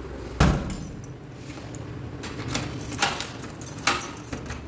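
Front door being shut and locked with keys: a thump about half a second in, then several metallic clicks and key rattles at the lock.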